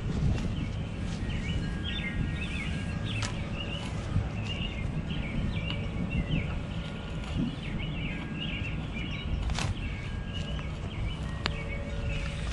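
Wild birds chirping and singing continuously over a low rumble, with a few sharp knocks.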